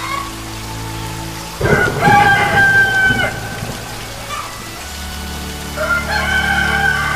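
A rooster crowing twice, the first crow about one and a half seconds in and the second near the end, over the hiss of steady rain.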